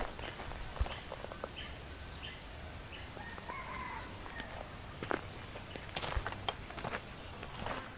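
Insect chorus in an oil palm plantation: a steady, high-pitched drone that holds without a break.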